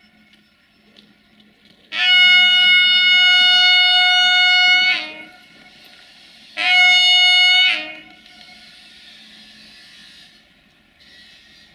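Train horn sounding two blasts on one steady pitch: a long blast of about three seconds, then a short one of about a second. A quieter steady hiss follows the second blast.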